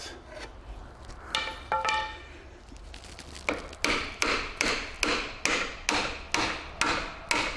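Two ringing metal knocks, then a steady run of hammer blows on steel at about three a second. A lever bar is being driven in behind a CV joint cup to pry it out of a Ford Transit Connect's gearbox.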